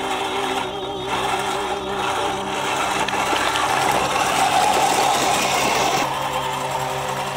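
Dubbed-in mud truck engine sound for an RC 4x4 driving through mud and water: a steady engine drone that gets louder and busier from about a second in, rising in the middle, then drops back near the end.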